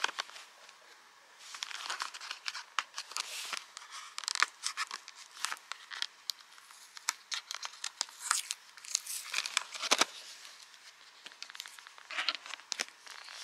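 Packaging of a round cardboard box of foil-wrapped cheese wedges being handled and opened by hand: crinkling and tearing of wrapper, a run of small crackles and clicks with a couple of sharper snaps about four and ten seconds in.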